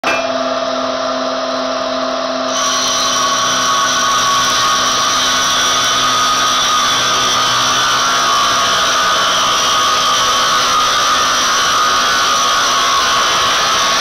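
Automatic multi-blade circular saw machine running and ripping a wooden board into strips, a steady whining saw sound that grows louder and brighter about two and a half seconds in.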